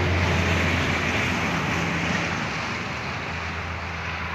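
Water pouring steadily into a concrete holding tank, a constant rushing hiss with a steady low hum underneath.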